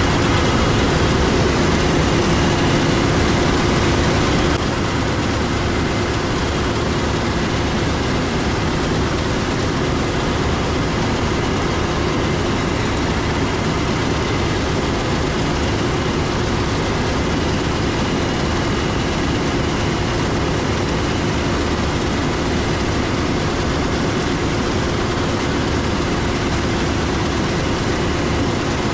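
Heavy harvest machinery running steadily: a big diesel engine with its drone and a constant hum. The level drops slightly about four and a half seconds in.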